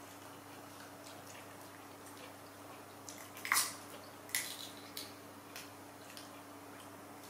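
A young macaque cracking and peeling longan shells with its teeth and fingers: a handful of short, sharp crackles and clicks, the loudest about three and a half seconds in, over a faint steady hum.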